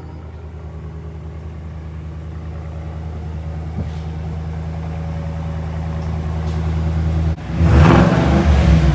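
A 2022 Cadillac Escalade's 6.2-litre V8 idles steadily through a Borla S-Type cat-back exhaust. Near the end the engine is revved once, sharply and loudly.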